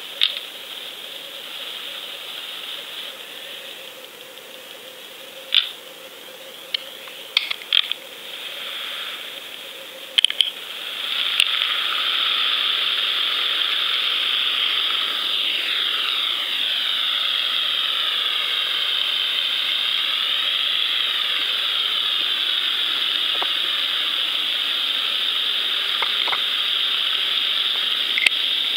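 Water rushing past a GoFish underwater camera's housing as it moves on its line, heard as a hiss with a slowly shifting tone. A few sharp clicks and knocks come in the first ten seconds, then the hiss grows louder about ten seconds in and holds steady.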